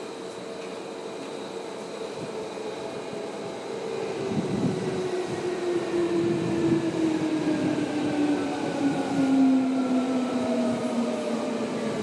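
Tokyo Metro 10000 series electric train running, with a low rumble from the running gear and a whine from its traction motors and inverter. About four seconds in, the whine grows louder and falls steadily in pitch as the train slows.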